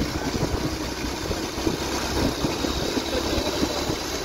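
Motorcycle engine running steadily on the move, with wind rumbling over the microphone.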